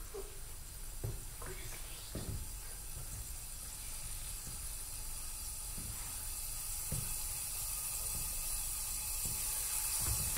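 A soft hiss like running water, slowly swelling louder, with a few faint knocks early on and a sharp thump right at the end.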